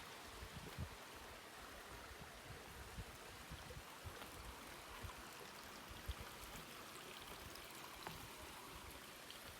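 Faint, steady rush of a creek's running water, with a few soft low thumps.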